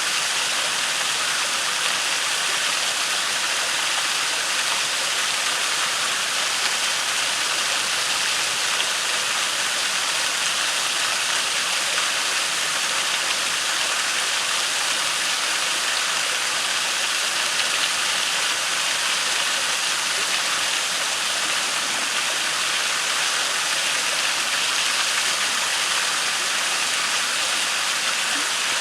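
Waterfall and creek water rushing in a steady, unbroken hiss.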